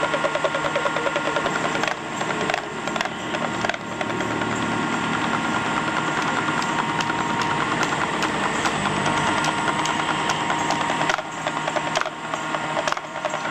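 Busy street noise with engines running, overlaid by runs of fast, sharp rattling clicks that come and go.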